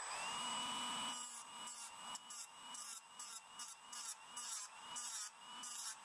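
Dremel rotary tool with a cutoff wheel spinning up to a steady high whine, then grinding in short repeated passes against the chrome trim of a diecast toy car, the whine dipping slightly each time the wheel bites.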